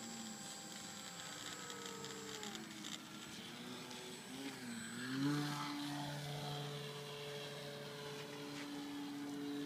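Motor and propeller of a radio-controlled flying lawnmower model in flight, its pitch sliding up and down with the throttle. About five seconds in it rises sharply as the throttle is opened for the climb, then holds a steady higher pitch.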